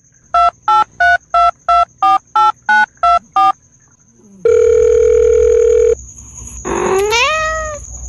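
Ten quick telephone keypad dialing beeps, then a steady phone tone for about a second and a half, then a cat's rising meow near the end.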